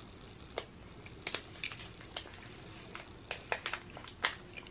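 Close-up chewing of a bite of milk chocolate with crispy hazelnut praline bits: scattered sharp little crunches, irregular, the loudest about four seconds in.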